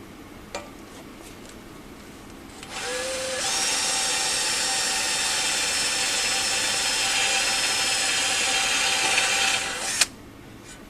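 Electric drill with a 5 mm bit drilling out a rusted-off bolt remnant in a cast iron stove top. It starts about two and a half seconds in, runs steadily at full speed for about seven seconds, and stops with a sharp click near the end.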